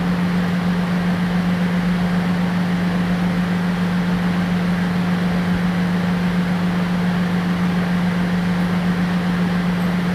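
A steady mechanical hum over a constant hiss, unchanging throughout.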